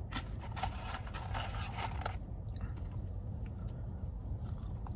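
Close-up eating sounds: a man chewing Arby's curly fries, with dense crackling for the first two seconds and quieter, sparser mouth sounds after, over a steady low hum.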